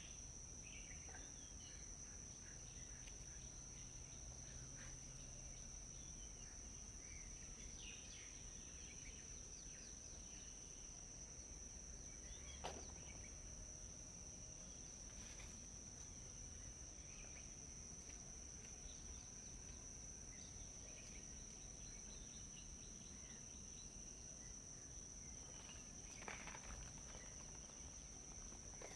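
Insects droning in a steady high-pitched trill, with faint scattered bird chirps and one sharp click about halfway through.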